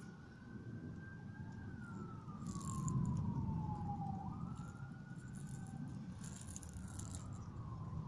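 An emergency-vehicle siren wailing, its tone jumping up and then sliding slowly down, about once every four seconds. Under it are a low rumble of wind or handling noise and a few short rustles.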